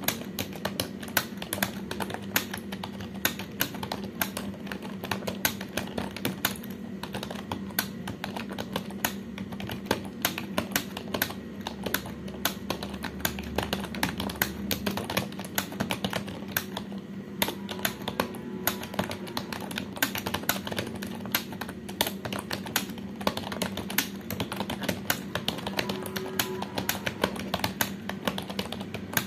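Computer keyboard being typed on quickly and continuously, a fast, uneven patter of key clicks, about four to five keystrokes a second, over a steady low hum.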